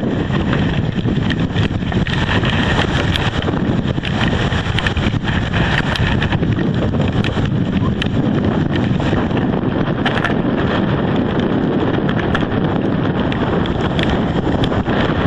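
Strong storm wind of Hurricane Irene buffeting the microphone and rushing through the trees as a loud, steady low rumble, with scattered small clicks throughout.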